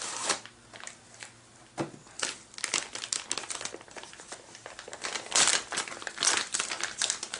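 Crinkling and rustling of an anti-static mat kit's packaging as it is handled, in many irregular crackles.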